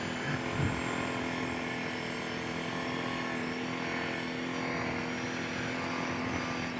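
Kawasaki Brute Force 750 ATV's V-twin engine running at a steady, even speed.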